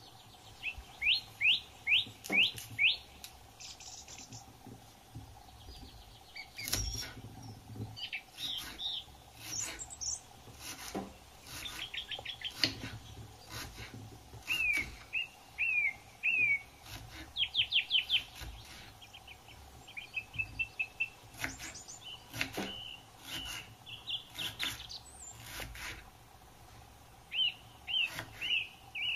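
Birds chirping in repeated quick runs of short, high, sweeping notes, with scattered sharp clicks and knocks in between.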